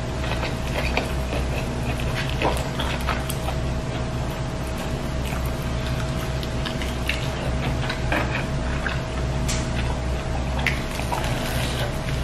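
Close-miked eating sounds: chewing, lip smacks and the soft squish of fried milkfish and rice picked and eaten by hand, as many short scattered clicks over a steady background hum.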